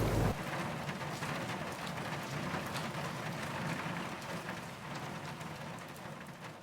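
Rain falling: a steady hiss with many separate drop ticks. A lower rumble cuts off just after the start, and the rain sound fades out over the last couple of seconds.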